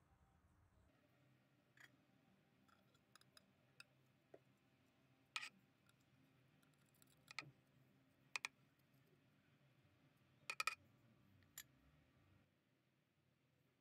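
Scattered sharp clicks and taps, about ten in all, with a quick double near the end: long metal aquascaping tweezers knocking against the glass tank and bark as they press soil into place.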